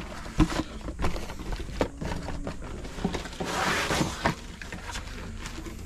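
Cardboard box being opened and unpacked by hand: scattered taps and knocks of cardboard and parts, with a longer rustle about three and a half seconds in as the contents are slid out.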